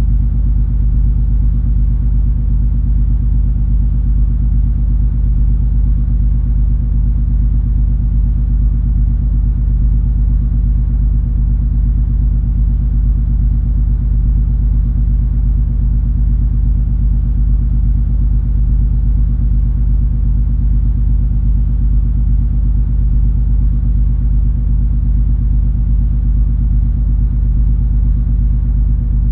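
Steady low drone of the MS Color Fantasy cruise ferry under way: a deep engine and hull hum with several steady low tones, unchanging throughout.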